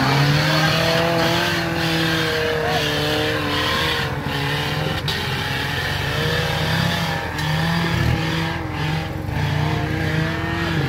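Off-road 4x4 engine revving under load, its pitch rising and falling again and again.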